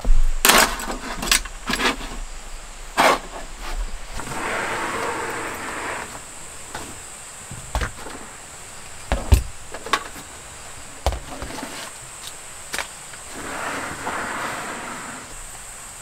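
Camping gear being handled and set down on a wooden deck: a series of sharp knocks and clicks, with two longer rustles of bags or fabric, a few seconds in and again near the end. A faint steady high-pitched tone sits underneath.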